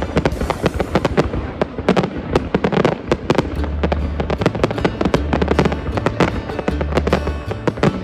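Fireworks going off in a rapid, continuous barrage of bangs and crackles, several a second, with music playing underneath.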